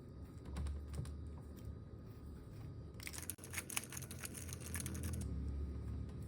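Plastic Rubik's cube being turned: a quick run of faint clicks and clacks as the layers are twisted, starting about halfway through and lasting about two seconds.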